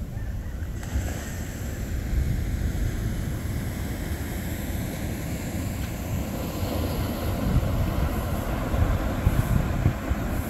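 Wind gusting over the microphone: a continuous low buffeting rumble that grows louder and gustier in the second half.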